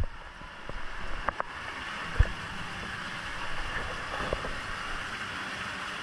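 Steady rushing noise of an indoor water park, running water and the din of the hall, with a few light knocks, the sharpest about two seconds in.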